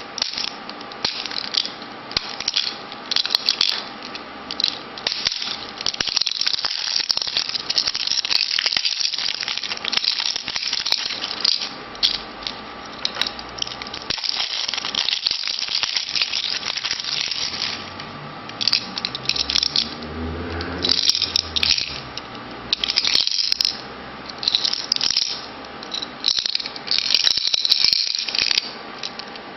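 Hollow plastic Hello Kitty figure container twisted and pried at by hand as someone tries to open it: its plastic parts rattle, click and scrape in bursts with short pauses.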